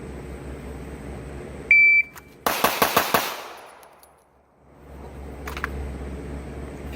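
A shot timer beeps once, then a pistol fires a rapid string of about five shots in well under a second, about three-quarters of a second after the beep.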